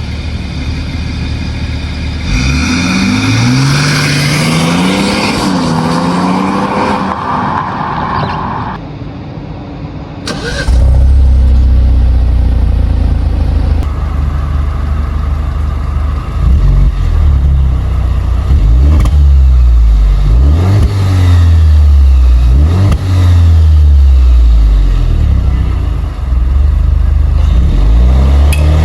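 Car engines being revved: one engine climbs in pitch a few seconds in, then, after a break near ten seconds in, a deeper, louder engine is blipped repeatedly, its pitch rising and falling several times.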